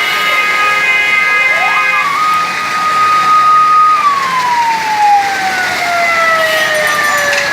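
A siren wails: it rises about a second and a half in, holds one pitch for a couple of seconds, then slowly falls, over a steady hiss. A steady chord of tones stops about two seconds in.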